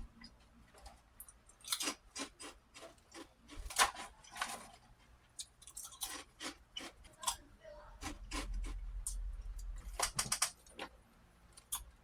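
Prawn crackers being bitten and chewed close to the microphone: irregular crisp crunches, some sharp and loud, with a low rumble for about two seconds near the end.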